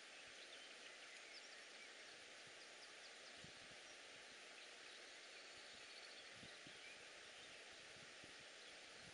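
Near silence: faint steady outdoor background hiss, with a few faint high bird chirps and some soft low knocks.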